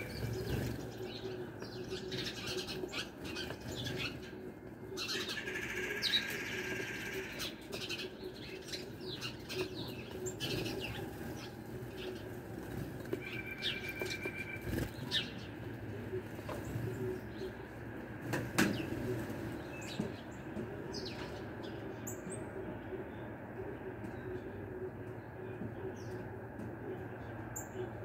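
Wings flapping as small birds, house sparrows among them, fly on and off a ledge, with scattered short chirps. There are brief sharp taps, the loudest about two-thirds of the way through, over a steady low hum.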